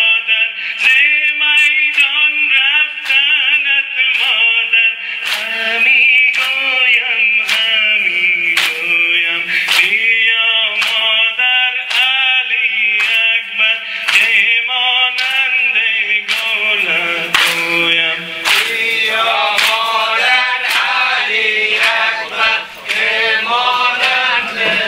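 Men chanting a Persian mourning noha, with sharp rhythmic strikes about every 0.8 seconds, the chest-beating of sina zani that keeps time with the lament.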